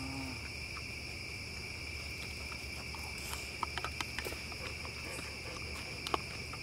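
Night insects chirring in a steady, unbroken chorus, with a few light clicks of chopsticks and utensils against bowls about halfway through and near the end.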